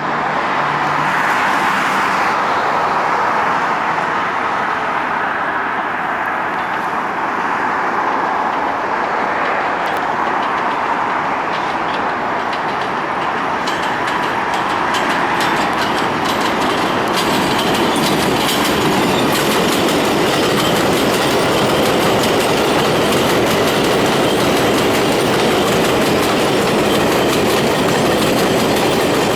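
R142A subway train running through the station at speed without stopping: a continuous loud rumble of wheels on rail, with a rapid clattering of wheels over rail joints that grows denser and brighter from about halfway through.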